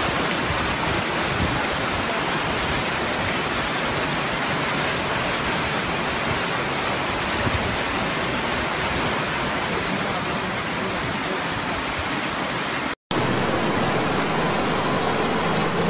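Steady, even rushing of fast-flowing floodwater. About thirteen seconds in it cuts off abruptly and gives way to a different steady noise with a low hum from a truck engine driving through floodwater.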